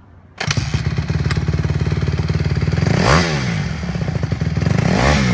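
2016 Honda CRF150R's 150cc liquid-cooled four-stroke single engine cuts in abruptly about half a second in and runs at a fast idle, blipped twice with a quick rise and fall in pitch, about three and five seconds in.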